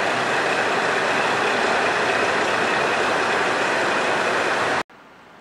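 Diesel railcars standing at the platform with their engines idling, a loud steady running noise at close range that cuts off abruptly near the end.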